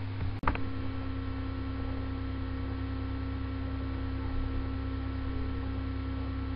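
Steady electrical hum with a few constant tones over it, and a single short click about half a second in.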